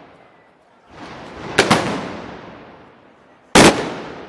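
Loud gunpowder bangs with long echoing tails: a quick double bang about a second and a half in, then a single louder bang near the end.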